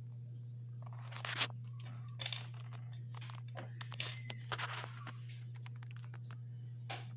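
Old coins, a transit token and a corroded die-cast toy car being handled and shifted on a wooden tabletop: a few short scrapes and metal clicks, over a steady low hum.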